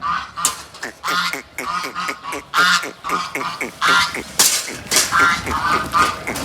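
A flock of farm animals calling in quick succession: short calls, several a second, many dropping in pitch.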